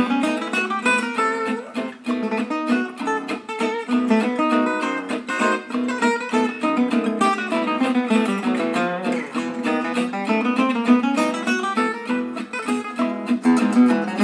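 Background music: an acoustic guitar played in quick plucked notes.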